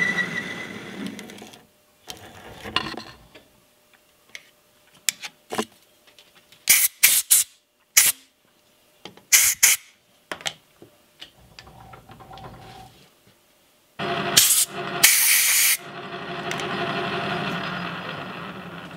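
Metal lathe boring the inside of a steel part, the cut ending and the spindle running down within the first two seconds. Then clicks and handling noises with several short bursts of hiss, and about sixteen seconds in the lathe spindle starts up again and runs, fading near the end.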